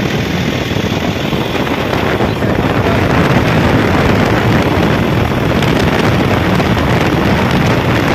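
Weichai WP4.6 four-cylinder diesel engine of a crawler excavator running steadily, heard up close in the open engine bay, loud.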